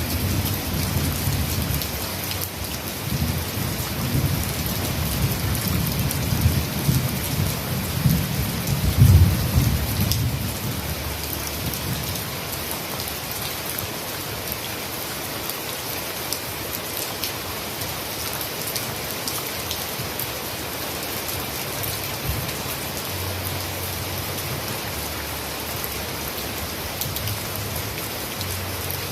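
Heavy rain falling steadily, a dense even hiss with fine drop patter. Under it a low rumble rises and falls for the first ten seconds or so, loudest about nine seconds in, then fades out.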